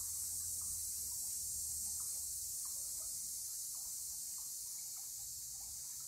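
Steady high-pitched insect chorus, with faint scattered short chirps and a low rumble beneath.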